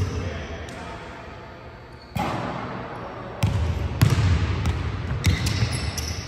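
Basketballs dribbled and bounced on a hardwood gym floor: irregular thumps, sparse for the first two seconds, then coming thick and fast again.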